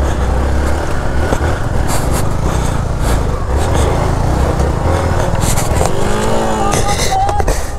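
Motorcycle engine running as the bike is ridden over a rough off-road track, with frequent knocks and rattles from the bumpy ground.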